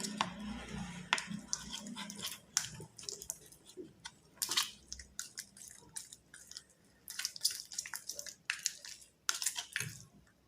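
Sticky glue-based slime being mixed in a container, giving irregular wet squelches and small clicks in bursts with short pauses.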